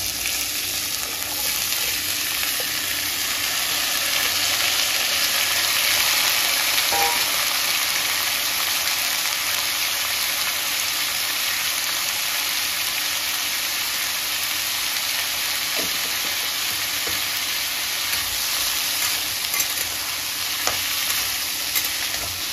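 Chopped green beans sizzling steadily in hot oil in a pan, the frying hiss starting suddenly at the outset, with a few light taps later on.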